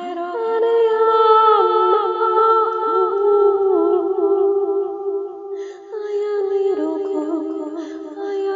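A woman's voice humming a slow, wordless lullaby-like melody in long held notes, with two layered voice parts sounding together. This is a 'light language' vocal transmission. There is a brief lull about two-thirds of the way through before the voices come back in.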